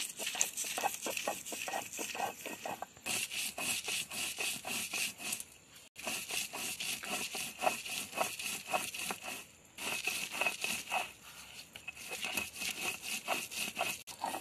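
Stone roller being rolled back and forth on a flat grinding stone, crushing grated coconut and spices into a paste: quick rhythmic grinding strokes in runs, with short breaks about 3, 6 and 10 seconds in.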